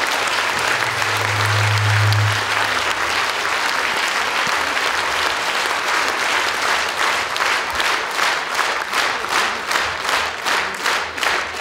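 Concert-hall audience applauding. The clapping turns into rhythmic unison claps, about two to three a second, over the last few seconds. A low steady tone sounds under the applause for about two seconds near the start.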